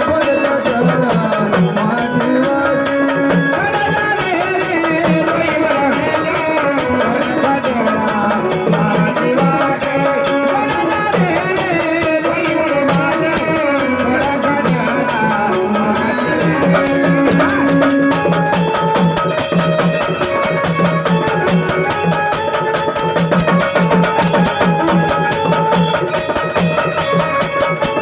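Marathi gondhal folk music: a gliding melody over steady, regular hand-drum beats.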